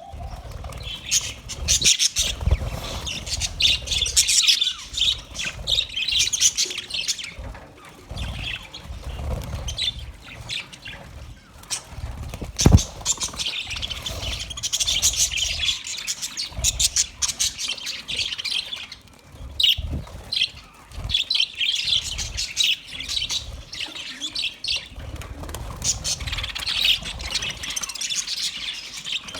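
Budgerigars chattering and chirping in quick, overlapping bursts throughout, with a low rumble underneath. A single sharp knock about halfway through.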